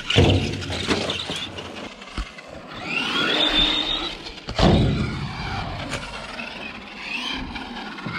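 Brushed electric motor of a Kyosho Mad Van RC van whining, rising in pitch as it accelerates and falling as it slows, with tyre noise on the ground. Two sharp thuds of the van landing, one at the start and one about four and a half seconds in.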